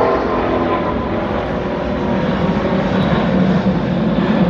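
Emirates Airbus A380's four jet engines at takeoff climb thrust, a loud steady roar. The high whine of the engine fans fades in the first second, leaving a deep rumble that grows toward the end as the plane climbs away.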